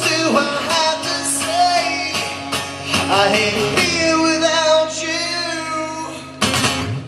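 Live song: a male singer holding long, wordless sung notes over a strummed guitar, with a louder burst of sound about six and a half seconds in as the song closes.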